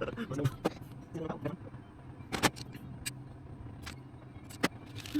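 Scattered sharp clicks and taps, about five, from tools and parts being handled during electrical wiring work, over a steady low hum.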